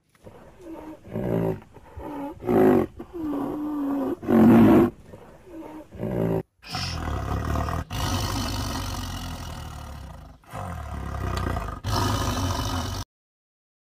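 Big cat, a tiger, roaring and growling: first a run of short moaning roars that rise and fall in pitch, the loudest about four and a half seconds in, then several longer low, rough growling roars broken by brief gaps.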